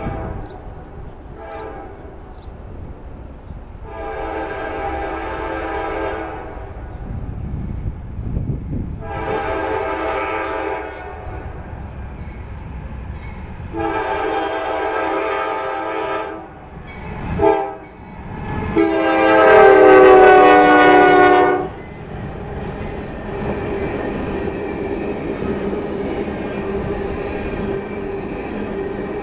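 Diesel freight locomotive's multi-note air horn sounding a grade-crossing signal: several long blasts, a short one, then a final long blast that is the loudest. After that the locomotive and its tank cars roll past with a steady rumble of wheels on rail.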